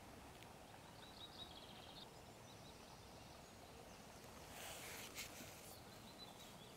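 Near silence: faint outdoor ambience with a few soft, distant bird chirps.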